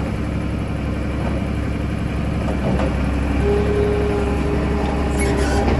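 Heavy-equipment engine running steadily with a low rumble; a steadier, higher hum comes in about halfway through.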